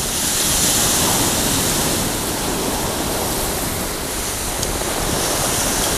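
Surf breaking and washing up the beach, a steady rushing noise that swells a little about a second in and eases again.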